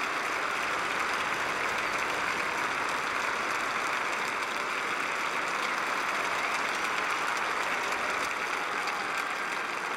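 Large audience applauding, a dense, even clapping that holds steady.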